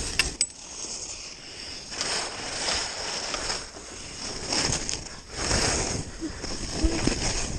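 Skis scraping and hissing over packed, chopped snow in a run of turns, each turn a swell of scraping noise, with a couple of sharp clicks near the start.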